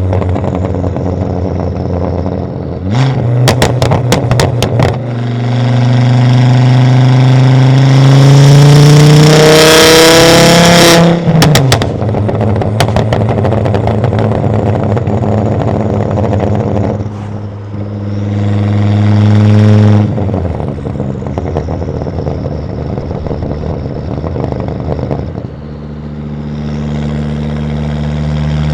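Catless exhaust of a Volvo S60 2.5T's turbocharged five-cylinder engine. A burst of rapid pops and cracks gives way to a pull with the note climbing steadily for several seconds. The note then drops abruptly with a few more cracks and settles into steady running, which steps down and then rises again near the end.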